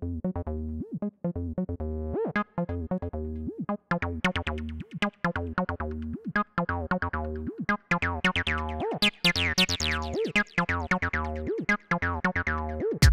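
Acid-style synthesizer bassline: a fast repeating sequence of short notes, each with a resonant filter sweep. The filter opens up about two-thirds of the way through, making the line much brighter.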